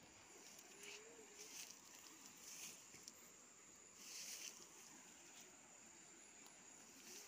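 Quiet outdoor ambience: a steady high-pitched insect drone, with a few short, soft rustles in the first half.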